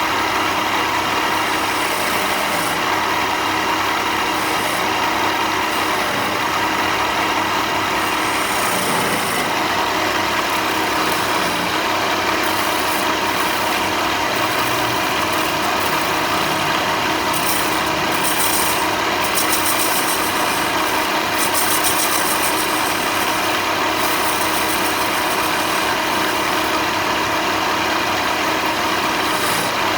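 Electric power tool motor running steadily as it works wood, with rasping from the wood surface that comes and goes, strongest toward the middle.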